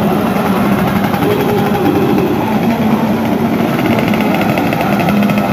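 Several two-stroke 115 cc underbone race motorcycles running at once, a loud, continuous engine buzz whose pitch shifts now and then as throttles are worked.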